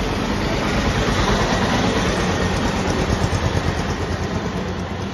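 A motor engine running close by, a steady low rumble that swells slightly in the middle.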